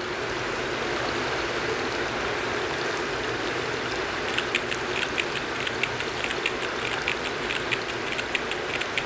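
Steady running water, like a stream of water splashing into a basin, with irregular sharp ticks joining from about halfway through.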